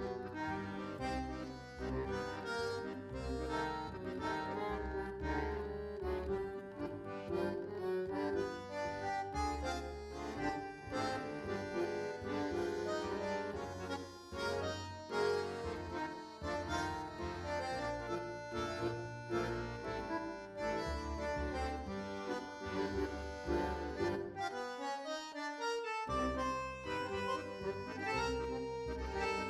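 Background music: an instrumental tune with a melody over a steady bass line; the bass drops out briefly near the end.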